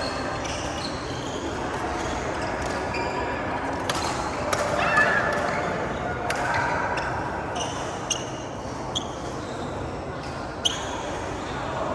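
Badminton play in a hall: several sharp racket hits on the shuttlecock, a second or two apart, over a background of people talking.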